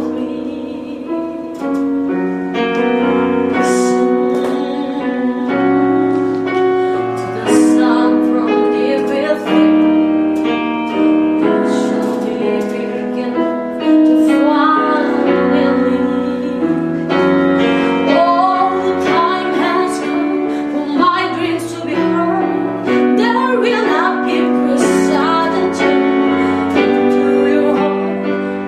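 Music: a woman singing over piano accompaniment, with held notes and sustained chords.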